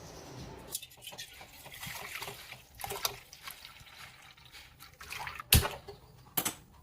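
Water splashing and trickling with scattered clicks, then two sharp knocks near the end, the first the loudest.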